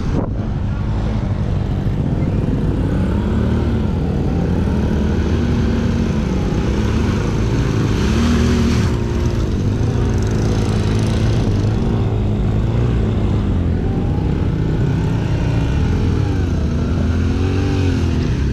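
Enduro motorcycle engine running while riding, its pitch rising and falling again and again with the throttle.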